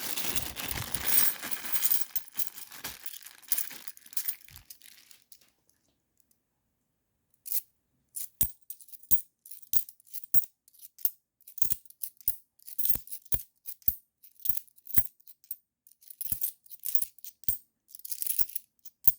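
Loose 50p coins being handled: a rustling, clinking jumble of coins and bag that fades out over the first few seconds. After a short gap, single coins are clicked down one at a time on a hard surface, one or two a second.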